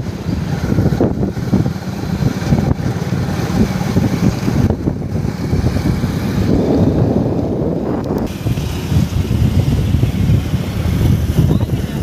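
Wind buffeting the microphone while riding along a road, with vehicle engine and road noise underneath: a steady, loud, ragged low rumble.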